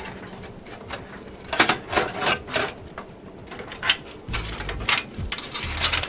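Irregular clicks and knocks of parts being handled and pushed into place inside a PC case during a fan installation, with a cluster of sharper clicks about two seconds in and a low rumble of handling noise near the end.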